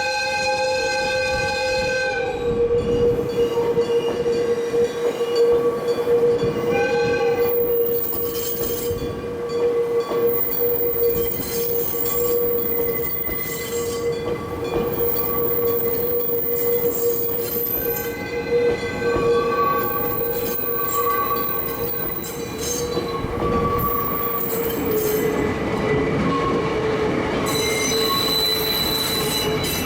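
Electric-bell level-crossing bell ringing continuously while a locomotive-hauled train of towed subway cars passes. The locomotive's horn sounds for about the first two seconds and briefly again about seven seconds in, then the wheels clatter and squeal over the rails.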